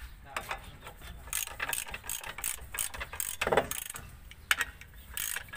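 Ratchet wrench clicking in short strokes as it turns a bolt into the threaded puller hole of a Toyota Innova's rear brake drum, jacking the drum off the hub. A duller thud comes about halfway through.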